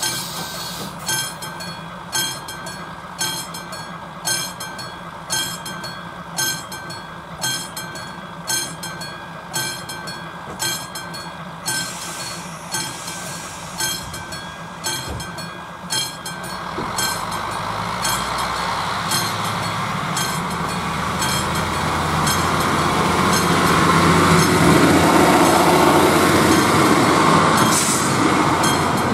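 The mechanical bell of an AŽD 71 level crossing signal ringing in steady strokes, about three every two seconds, while the crossing is closed for a train. From about halfway a passenger train approaches, growing louder, and runs through the crossing near the end, drowning out the bell.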